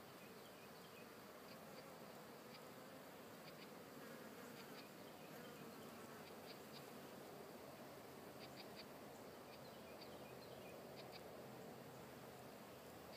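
Faint, steady buzzing of foraging honeybees' wings, with short high chirps scattered through it.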